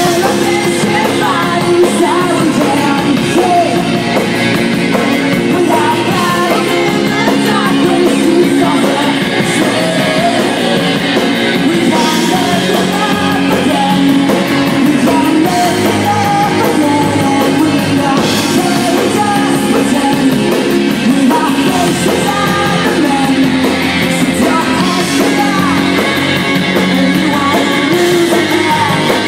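Live rock song: a male lead singer sings into a microphone over loud, steady band accompaniment.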